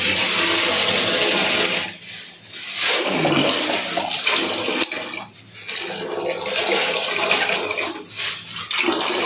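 Water gushing and splashing into a metal pot as raw mutton is rinsed out of a plastic bag, the flow breaking off briefly three times.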